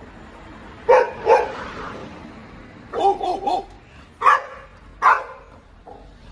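A dog barking: four short, sharp barks, two about a second in and two more near the end. Around the middle comes a quick run of four short pitched yips.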